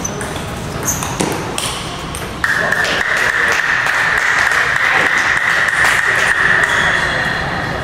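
Table tennis balls clicking off bats and tables in a playing hall. From about two and a half seconds in, a steady high tone starts suddenly and holds for about five seconds.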